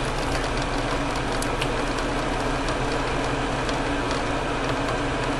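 Exhaust fan running with a steady whirring hum, with a few faint ticks over it.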